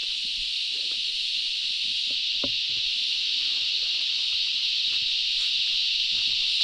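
Chorus of cicadas in rainforest: a steady, high-pitched shrill drone that grows slightly louder over a few seconds, with faint soft thuds underneath.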